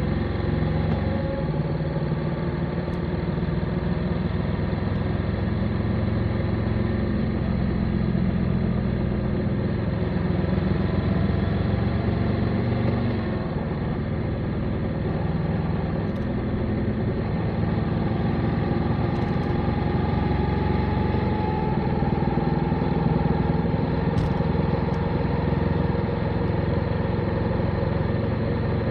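Motorcycle engine running under way on an open road. It holds a steady note that dips and rises with throttle and gear changes, most clearly about halfway through.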